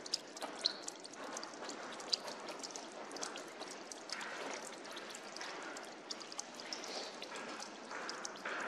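Meltwater dripping and trickling off icicles: many small, quick drips over a steady faint trickle.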